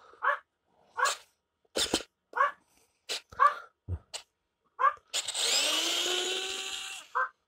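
Geardrive WORKPRO 3.6 V rechargeable precision electric screwdriver backing a self-tapping screw out of a wooden board. Its motor sounds in several short bursts, then from about five seconds in runs for about two seconds with a whine that rises as it speeds up and levels off before it stops. It is somewhat short of power for a wood screw like this.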